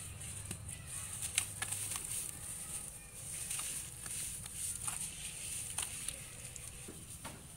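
Wet sandy mud squelching and crackling as hands squeeze and knead it in a tub of muddy water, with water dripping and splashing and many small irregular clicks and pops. A steady high hiss runs underneath.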